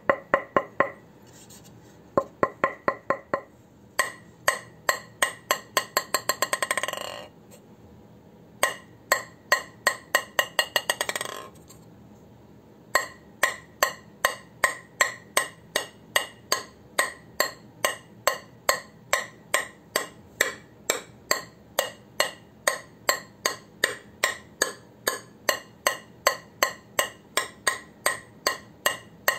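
Ping pong ball bouncing on a bare Butterfly Gergely Carbon blade held flat, each bounce a sharp ringing tap. Twice in the first half the ball bounces faster and faster until it settles. After that it is bounced steadily, about two and a half taps a second.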